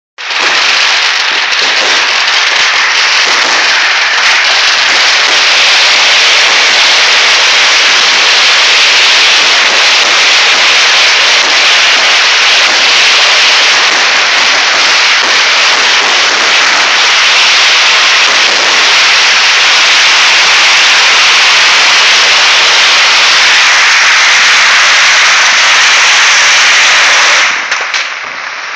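Fireworks going off in a dense, unbroken barrage of crackling and bangs, very loud. The din drops away abruptly near the end.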